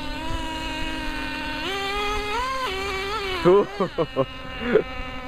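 HSP Monster 1/16 RC monster truck's small two-stroke nitro engine buzzing at high revs, its pitch rising and falling as the throttle is worked. About three and a half seconds in come a few quick rev blips with fast swoops in pitch.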